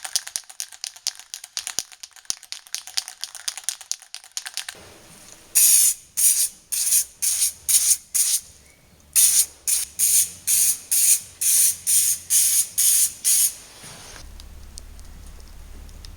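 Aerosol rattle can of acrylic clear lacquer: for about four seconds, quick rattling clicks as the can is shaken, then about fifteen short hissing spray bursts, roughly half a second apart, with a brief pause midway.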